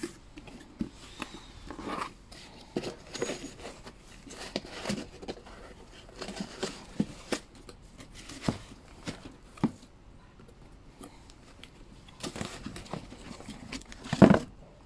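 Foam packing and a cardboard box being handled by hand: irregular rustles, scrapes and light knocks. They are loudest near the end, as the foam insert is pulled out of the box.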